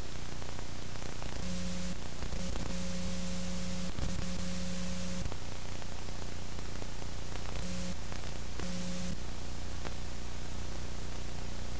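Steady static hiss over a low electrical hum. A buzzing tone cuts in and out abruptly several times, with a couple of faint clicks.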